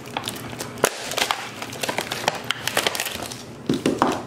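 Thin plastic packaging crinkling and crackling as foil-wrapped canister firework shells are pulled out of it, with light knocks as the shells are set down on a wooden table.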